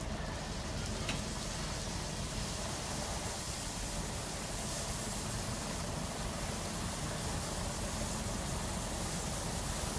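Steady hiss of water spraying in a drive-through bus wash machine, over the low rumble of a bus engine as the bus creeps forward through it. The hiss grows a little brighter about halfway through.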